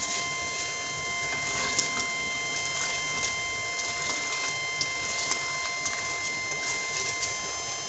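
Metal spatula scraping and clicking irregularly against an aluminium pot as chicken pieces are stirred through frying onion and tomato masala, over a steady hiss and a constant high whine.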